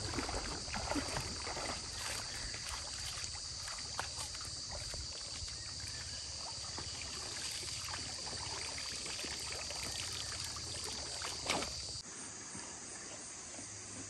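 Water splashing and dripping as a wet cast net is hauled up out of a shallow stream, with a sharper splash about two-thirds of the way through. A steady high insect drone runs underneath and cuts off abruptly about two seconds before the end.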